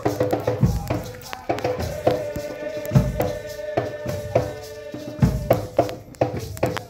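Nyahbinghi drumming: a deep bass drum struck slowly, about once every two seconds, with quicker, lighter drum strokes between the beats and voices chanting along.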